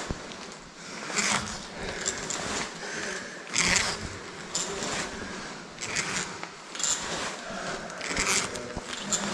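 Caving rope zipping through a caver's ascenders with each step of a climb up a single rope: a short rasp about every two and a half seconds.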